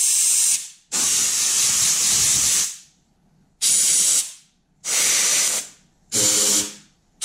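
Compressed-air blow gun with a long nozzle, fired in short hissing blasts, about five in a row with brief pauses between them and the second the longest, to blow debris out of the bolt holes in a jet ski hull.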